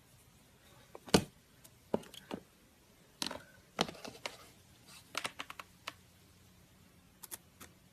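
Slime being handled, giving irregular sharp clicks and small pops in scattered clusters, the loudest about a second in.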